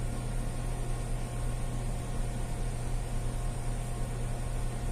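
Steady low hum and hiss of running machinery, unchanging throughout.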